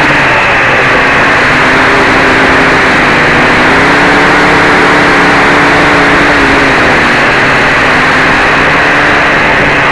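Quadcopter's four DT750 brushless motors and 11x4.7 propellers running in flight, heard close through the onboard camera's microphone: a loud, dense buzz and rush of air. Its pitch steps up around the middle and falls back a little later as the throttle changes.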